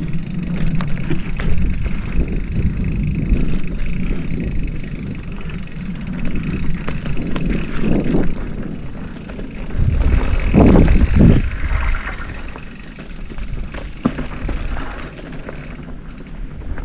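Mountain bike being ridden on a dirt trail: tyre and trail rumble with wind on the microphone, louder for a second or so about ten seconds in.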